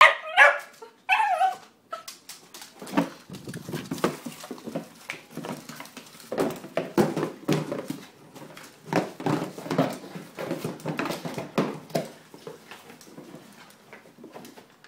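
Dachshund giving a few sharp barks, then attacking a taped cardboard box that holds a wine opener she hates: irregular scraping, rustling and knocking as she paws, bites and shoves it across a hardwood floor.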